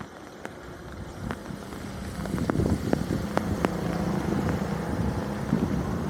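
An engine running steadily from about two seconds in, with scattered sharp knocks and clatters.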